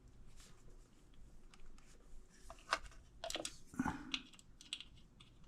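A spanner clicking and tapping on metal as it is fitted to the cam chain tensioner adjuster of a motorcycle engine. It is faint at first, then comes a run of sharp clicks and small knocks about halfway through.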